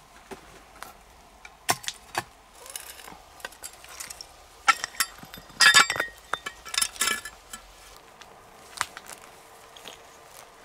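Metal spade digging into stony, gravelly ground: a string of sharp clinks, knocks and short scrapes, loudest just past halfway.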